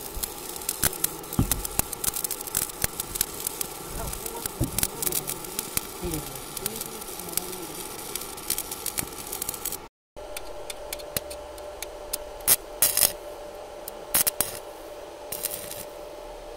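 Stick (shielded metal arc) welding on steel rebar: the electrode's arc crackling and sizzling continuously for about ten seconds, then breaking off abruptly. A few shorter bursts of crackle follow.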